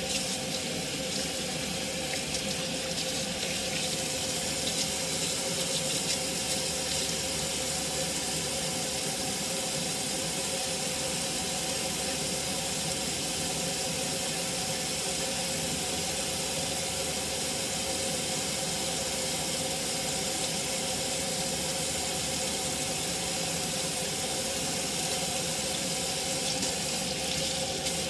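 Kitchen faucet running steadily, its stream splashing onto wet hair and hands and into a stainless steel sink as the hair is rinsed.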